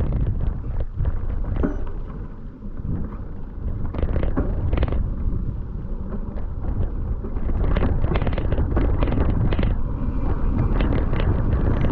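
Heavy wind buffeting the camera microphone with a deep rumble, broken by many quick rattles and knocks, with a brief dip in level about two to three seconds in.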